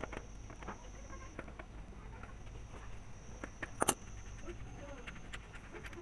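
Small metallic clicks and taps of an adjustable wrench and fingers on a bicycle's front axle nut as the old bolt-on axle nut is loosened and turned off, with a couple of louder clicks about four seconds in.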